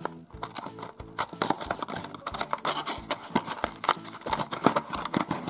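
Thin cardboard box being torn open by hand: flaps ripping with dense crackling and scraping, busiest after about a second in. Background music with a steady beat plays underneath.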